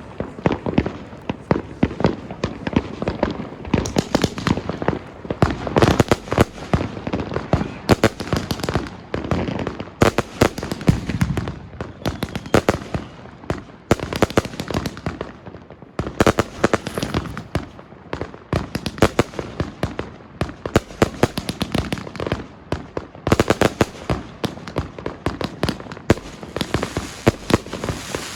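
Riakeo Compound No.1 firework battery (83 shots, 25–30 mm calibre) firing shot after shot in rapid succession, several sharp launches and bursts a second, without a break.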